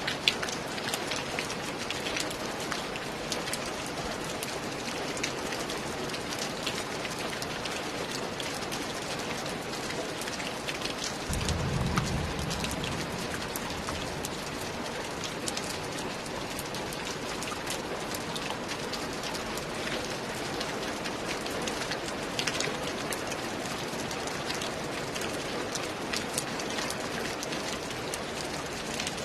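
Steady rain falling, with separate drops ticking through it, and a brief low rumble about eleven seconds in.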